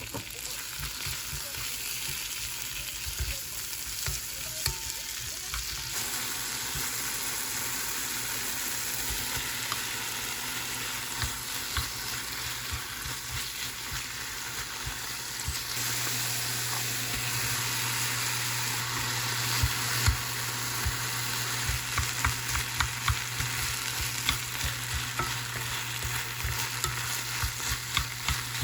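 Food sizzling in a frying pan while being stirred, with a steady hiss and frequent sharp clacks and scrapes of a utensil against the pan. A low steady hum joins about halfway through.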